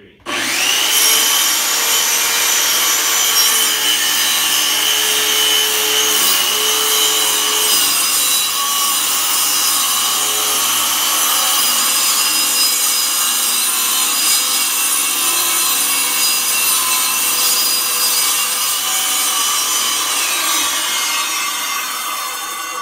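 Handheld electric circular saw spinning up and cutting through wooden boards: a loud, steady high whine with the rasp of the blade in the wood. About two seconds from the end the whine falls in pitch as the blade winds down.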